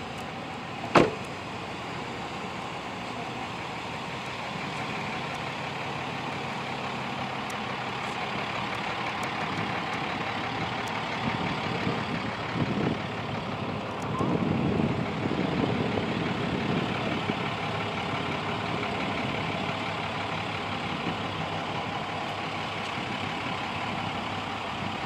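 Chevrolet Silverado 1500 pickup's engine idling steadily, with a single sharp loud knock about a second in.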